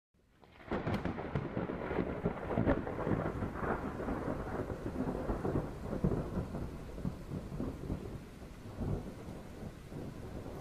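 A dense rumbling, crackling noise that fades in about half a second in and eases off slightly after the first few seconds.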